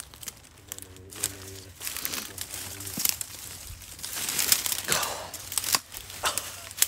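Footsteps rustling and crackling through leaves and undergrowth. A pigeon coos in the background about a second in.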